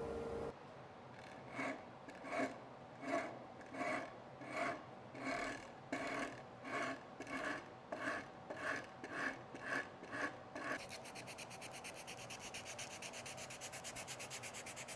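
A hand tool rasping or scraping wood in about fourteen steady back-and-forth strokes, roughly one and a half a second. From about eleven seconds in it gives way to a faster, finer rubbing.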